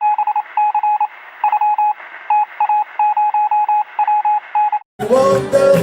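Electronic beeping: a single tone switched on and off in quick short and long beeps, sounding thin as if over a telephone or radio line, cutting off sharply near the end. It then gives way to loud live-venue sound of voices and music.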